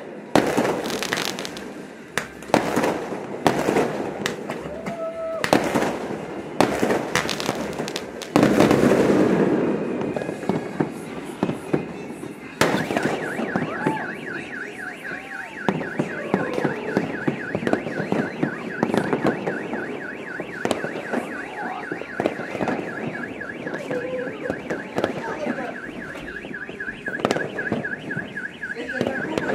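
Fireworks going off in a rapid series of loud bangs, with one long loud blast about eight seconds in. About thirteen seconds in a car alarm starts up, a fast-repeating electronic tone that keeps going while scattered firework bangs continue.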